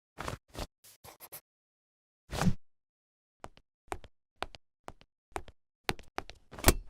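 A string of separate short knocks and taps with dead silence between them. The loudest comes about two and a half seconds in, and another strong one near the end rings briefly.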